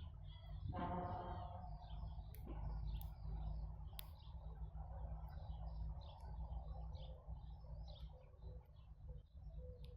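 Small birds chirping over and over, with a steady low rumble underneath. A brief, strongly pitched call sounds about a second in, and a few sharp clicks come a few seconds in.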